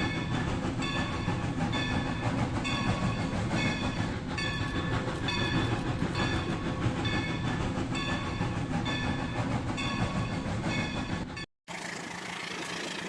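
Battery-powered toy train running, its motor noise overlaid with short electronic tones repeating about twice a second. The sound cuts off abruptly near the end and a quieter, different sound follows.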